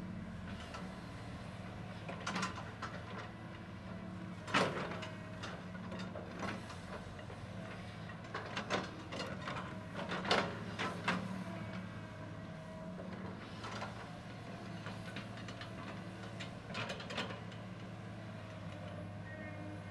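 CAT 315C hydraulic excavator's diesel engine running steadily while its bucket digs dirt, with scattered clanks and knocks of the bucket and rocks, the sharpest about four and a half seconds in and again about ten seconds in.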